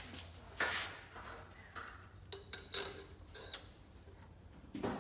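Light metallic clinks and clatter of small engine parts and hand tools being handled during engine reassembly, a handful of separate short clicks and one longer scrape-like rustle about a second in.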